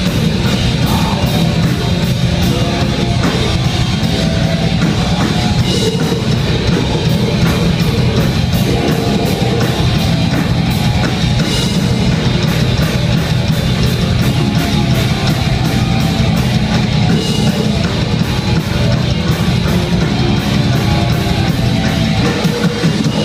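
Death metal band playing live at full volume: distorted electric guitars, bass and a drum kit keeping a steady cymbal beat, with the vocalist singing into the microphone.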